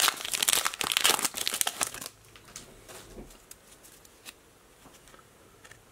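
Hockey card pack wrapper crinkling and tearing open in a dense crackle for about two seconds, then a few faint ticks as the cards are handled.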